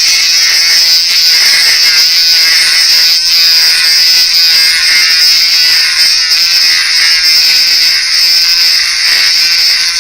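A power-driven sanding disc running steadily with a high whine while grinding down the plastic body of a fishing lure.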